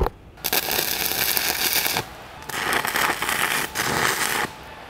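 Stick-welding arc crackling in two bursts, the first about a second and a half long, the second about two seconds: tack welds being laid on the corners of a steel I-beam.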